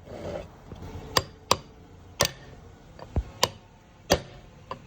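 A series of about seven sharp, irregularly spaced metal taps and knocks from tools being worked on the differential.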